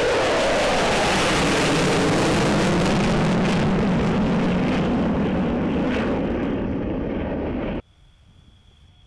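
F-15 Eagle fighter taking off on both afterburners: a loud jet roar whose pitch falls as it climbs past and away. It cuts off abruptly about eight seconds in, leaving only a faint steady high tone.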